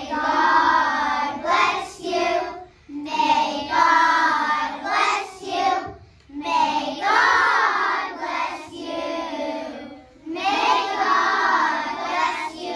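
A group of young children singing together, in phrases of a few seconds with short breaks between them.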